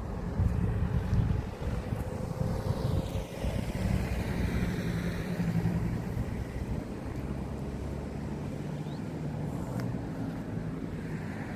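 A car drives past on the street, its engine and tyre noise swelling and fading around the middle, over a steady low rumble.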